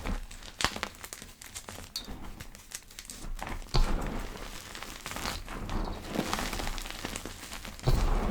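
Powdery chalk being crushed and pressed, giving a run of soft, dry crackles. A louder thump comes about four seconds in and another near the end.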